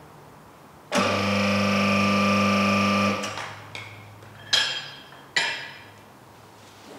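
Electro-hydraulic pump of a KL2500 Kwik Lift portable car lift running for about two seconds as a steady hum, raising the lift slightly off its lock stop. Then two sharp metallic clanks with a ringing tail as the steel locking mechanism is closed.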